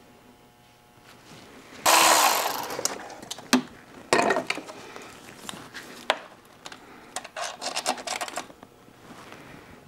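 Ratchet with a 10 mm socket on a long extension working out the oil filter housing bolts: a sudden loud rasping burst about two seconds in, then scattered metal clicks and a quick run of ratchet clicks near the end.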